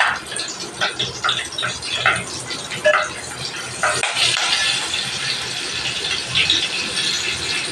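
Green chillies frying in hot oil in a steel pan, the oil sizzling. For the first few seconds a spatula scrapes and knocks against the pan in short strokes. From about four seconds in the sizzle goes on steadily.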